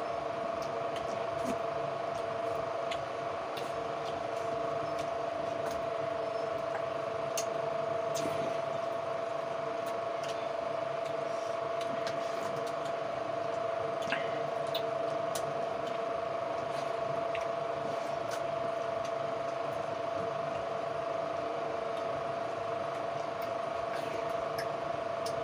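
A steady mechanical hum with a constant tone, like a running motor, under scattered soft clicks and smacks from hands mixing rice on steel plates and from chewing.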